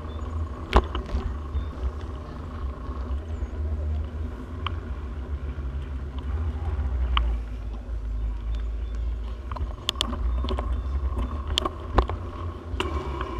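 Bicycle rolling over pavement, with wind rumbling on the microphone and sharp clicks and rattles from the bike, several of them in the second half.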